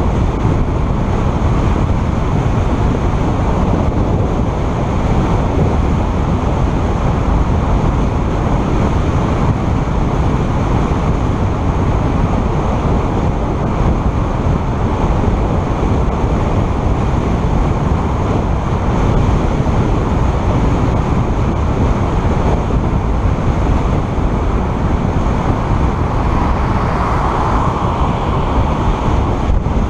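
Steady wind and road noise from a car driving at about 60–65 km/h, a low rushing that grows a little brighter for a few seconds near the end.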